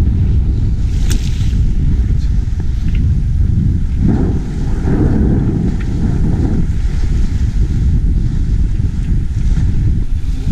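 Wind buffeting the microphone on a sailing yacht under sail, over the rush of water along the hull, with a louder surge about four to six and a half seconds in.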